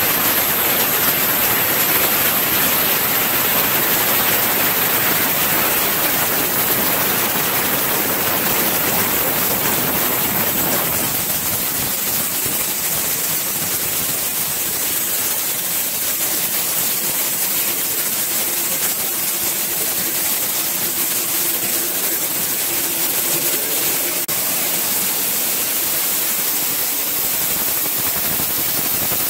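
Corn mill machinery running: a steady, loud, hissing din of milling equipment and moving grain, a little fuller for the first ten seconds or so, with a faint hum underneath later on.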